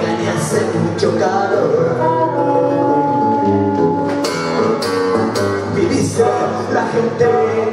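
Live acoustic guitar strummed together with a blues harmonica, with a man singing; about two seconds in, the harmonica holds one long high note for a couple of seconds.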